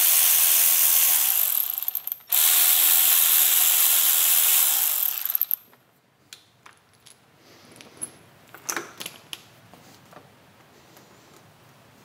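A handheld cordless driver runs steadily, with a brief stop about two seconds in, backing out the Torx 25 clamp bolts of a Harley-Davidson Street Glide's handlebar brake lever assembly. It cuts off about five and a half seconds in, leaving light clicks and knocks as the loosened lever assembly is handled.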